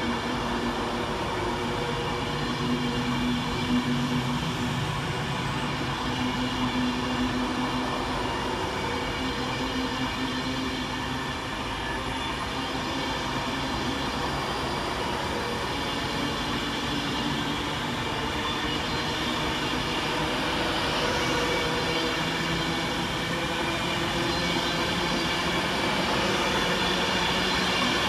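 Class 390 Pendolino electric train moving along the platform: a steady electric hum, with a whine rising in pitch in the second half, growing a little louder near the end.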